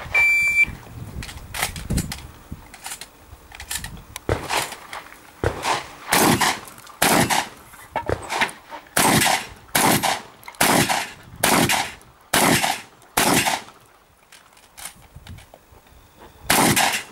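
A shot-timer start beep, then a string of about a dozen and a half shotgun shots fired at an uneven pace. The firing pauses near the end before one final shot.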